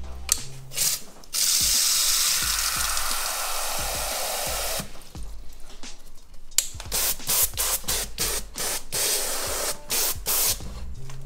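Water spraying from a hand-held trigger hose nozzle into a terrarium's water bowl: a steady hiss for about three seconds, then a run of short spurts as the flow is switched on and off.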